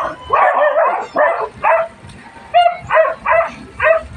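Stray dog barking: about eight quick barks in two runs, with a short pause a little before halfway.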